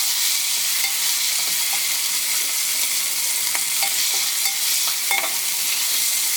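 Pieces of liver sizzling steadily as they fry in a hot pan with onions on medium-high heat. A few light clicks of a utensil against the pan come around the middle, as the pieces are turned over.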